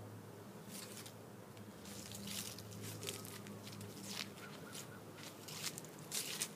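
Footsteps through grass and dry fallen leaves, soft irregular crunching, over a faint steady low hum.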